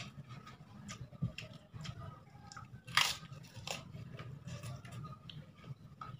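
Eating by hand: chewing with scattered crunches and small clicks, and one loud crunch about three seconds in.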